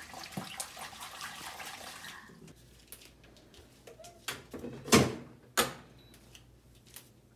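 Kitchen tap running into the sink for about two seconds, then a series of separate knocks and clatters as things are picked up and set down, the loudest a thump about five seconds in.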